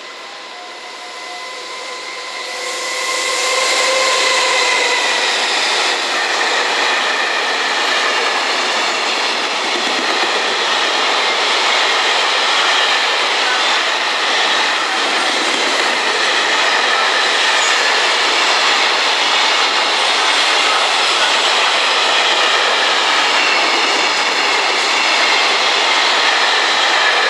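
A JR Freight EF210 electric locomotive approaches with a steady whine. From about three seconds in, the loud, steady rolling noise of a long train of container wagons passing on the rails takes over.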